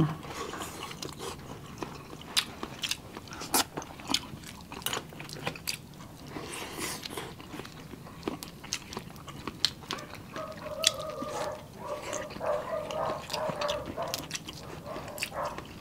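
Close-miked eating sounds: chewing and mouth smacks on oyster and shrimp, with frequent small sharp clicks and crackles. A faint murmured voice comes in during the second half.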